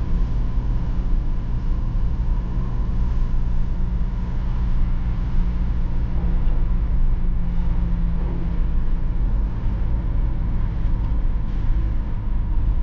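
BMW E46 320d's four-cylinder turbodiesel engine and road noise heard from inside the cabin while driving, a steady drone. The engine note drops back about eight seconds in.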